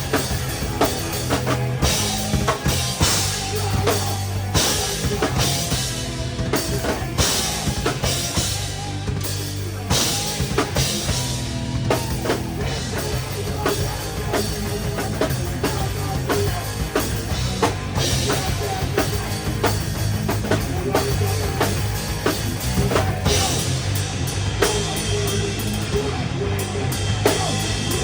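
Live rock band playing an instrumental passage, heard close from the drum kit: fast, dense drumming with bass drum, snare and cymbals over sustained bass and distorted guitar.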